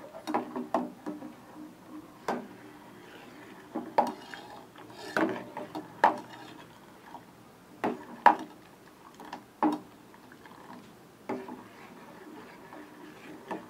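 Steel ladle stirring milk in a stainless steel saucepan, knocking and scraping against the pot's sides in sharp metallic clinks at irregular intervals, about one every second or two.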